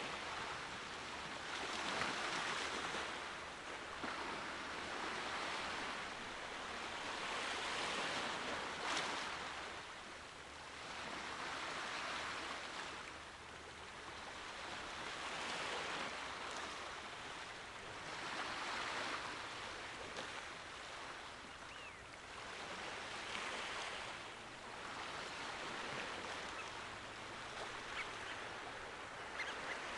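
Small sea waves washing and breaking, a hiss that swells and fades every few seconds.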